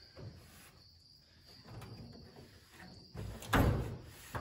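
Damp microfiber towel rubbing over the steel drawer fronts of a tool chest, with a louder thump about three and a half seconds in. A steady high-pitched trill runs underneath.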